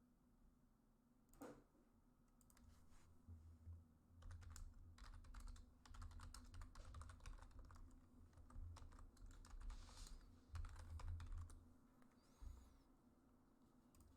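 Faint typing on a computer keyboard: a run of quick key clicks starting a couple of seconds in and stopping near the end, with low dull knocks under them.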